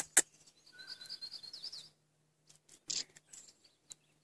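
A small bird twittering briefly in a quick run of high chirps, after a couple of sharp clicks at the start. Scattered faint clicks and a brief rustle follow.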